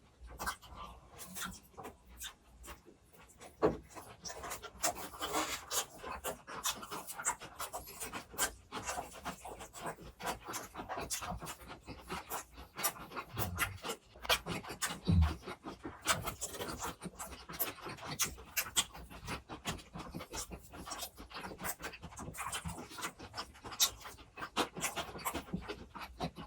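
Close-miked chewing and wet mouth sounds of people eating grilled pork belly, with many quick irregular clicks and smacks, and a couple of low thumps about halfway through.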